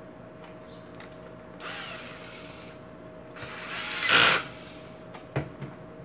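Electric screwdriver driving screws in two short runs, the second longer and louder, followed by a few sharp clicks.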